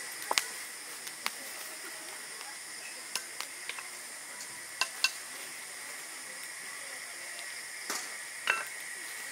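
Campfire crackling, with a handful of sharp irregular pops and knocks as the burning wood is tended, over a steady high hiss.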